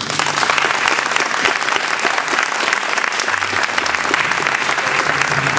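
Audience applauding, many hands clapping at once at a steady level.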